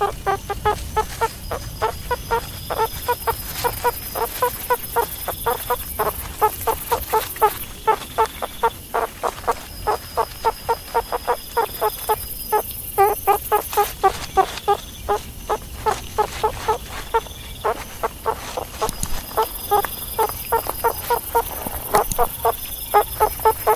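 Meerkats calling in a fast run of short, pitched clucking calls, about three or four a second, with brief pauses between runs.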